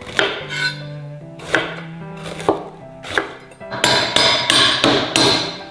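Chef's knife chopping red chili peppers on an end-grain wooden chopping board: a few separate cuts, then a quick run of chops about three a second near the end, over soft background music.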